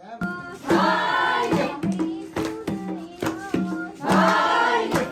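Bhailo song sung in chorus by a group of women, with hand clapping keeping a steady beat.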